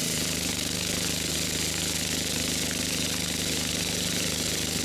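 Range Road RR5018 sawmill's engine running steadily under load while its blade cuts a wide plank from a large birch log.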